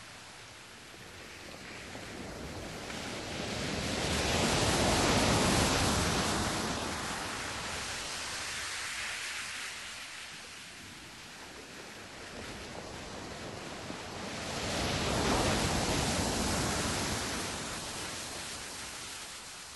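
Rushing noise that swells up and dies away twice, about ten seconds apart, like waves washing in.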